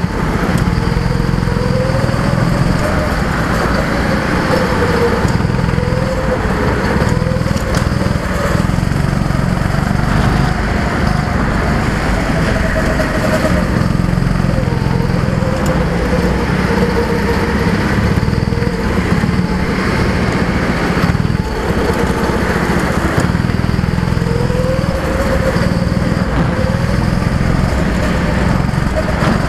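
A go-kart's small engine, heard from on board at close range and running continuously. Its pitch rises and falls every few seconds as the driver comes off and back on the throttle through the corners.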